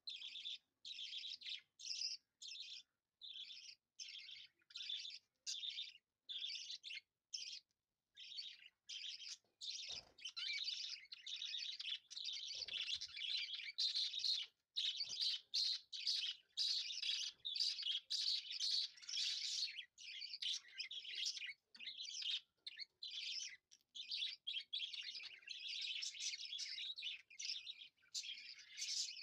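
Small birds chirping: short, even chirps about twice a second, thickening from about ten seconds in into a denser, overlapping chatter.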